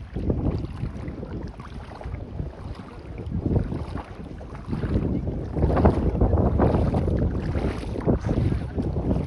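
Sea water washing against the shore in irregular surges, with wind buffeting the microphone; it grows louder about halfway through.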